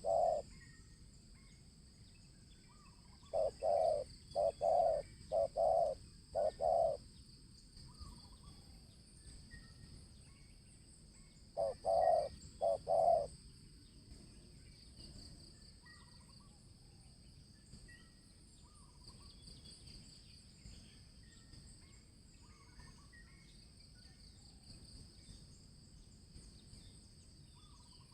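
Spotted dove cooing: a phrase of about five low coos a few seconds in, then three or four more near the middle, over a steady high buzz and faint chirps of small birds.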